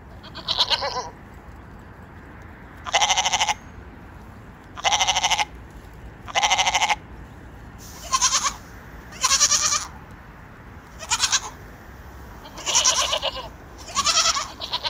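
Several goats bleating: about nine separate wavering calls of roughly half a second each, spaced one to two seconds apart.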